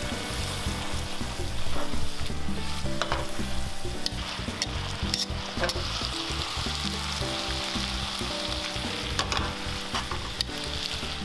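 Food sizzling steadily in a frying pan while it is stirred and tossed, with scattered clicks of a utensil against the pan.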